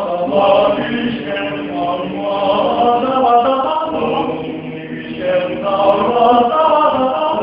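A small men's vocal ensemble singing a cappella in close harmony, holding sustained chords, with a brief lull a little past halfway before the voices come back in.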